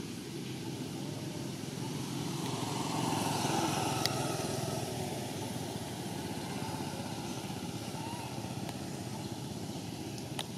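Steady low rumble of distant motor traffic that swells and fades about three to four seconds in as a vehicle passes, with a couple of sharp clicks.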